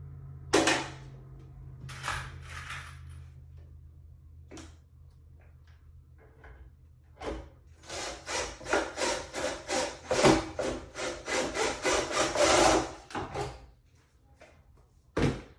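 Rapid, rhythmic rubbing or scraping on a pine board, about four to five strokes a second, lasting about five seconds from about eight seconds in. Scattered knocks of wood and tools come before it, and there is one sharp knock near the end.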